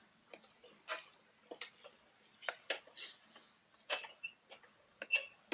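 A cooking utensil clicking and scraping against a pan at irregular moments while thick, melting cheese dip is stirred, with the sharpest knocks about a second in, around three to four seconds, and just after five seconds.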